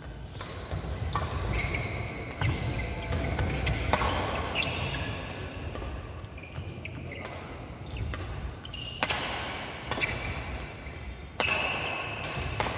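Badminton rally: sharp racket strikes on the shuttlecock at irregular intervals, with players' footfalls thudding on the wooden court.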